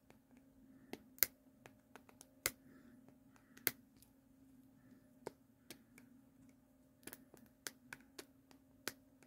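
Irregular sharp plastic clicks and taps as fingers pry and twist at a small plastic toy capsule, trying to pop it open: it is tricky to open. A faint steady hum sits underneath.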